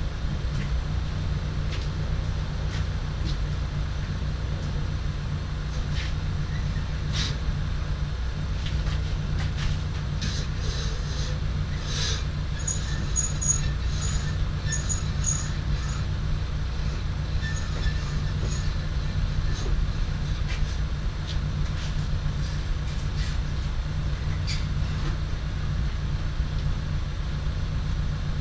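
A rope-and-pulley hardtop hoist (a gambrel and pulley hoist) lowering a car's hardtop on a sling. Its handling gives clicks, knocks and short squeaks, most of them around the middle, over a steady low hum.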